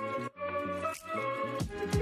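Background music: a melody over a bass line with short drum hits, and deep bass-drum thumps coming in near the end.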